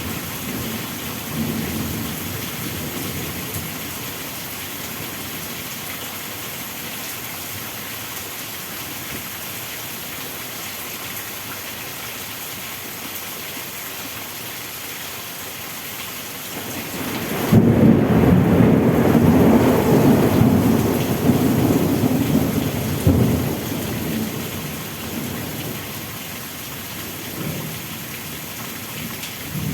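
Steady heavy rain with a rumble of thunder. A little past halfway the thunder breaks in suddenly and loud, rolls for a few seconds, then fades back under the rain. Another rumble begins near the end.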